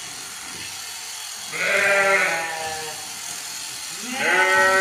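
Sheep bleating twice, two long wavering calls about two and a half seconds apart, over the steady buzz of an electric sheep-shearing handpiece.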